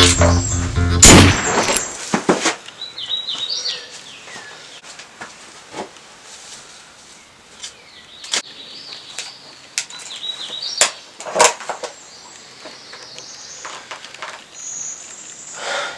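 A single loud bang about a second in, then outdoor ambience with birds chirping on and off and a few scattered sharp knocks.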